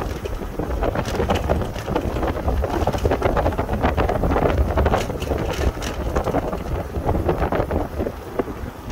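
Wind buffeting the microphone over the low, steady rumble of a vehicle travelling along a rough gravel road, with scattered irregular clicks.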